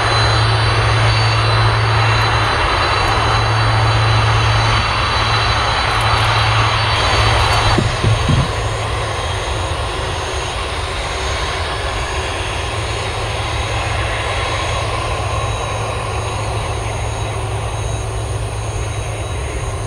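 A Boeing 747-400ER's four jet engines running as the airliner taxis past, a steady rumble with a low hum. The sound drops a little about eight seconds in.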